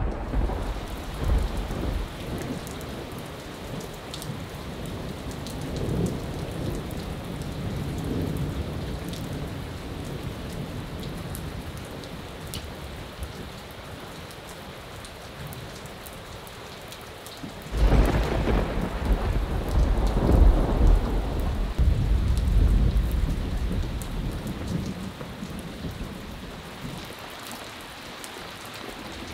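Steady heavy rain in a thunderstorm, with thunder rumbling. A loud thunderclap breaks out about two-thirds of the way through and rolls away over several seconds.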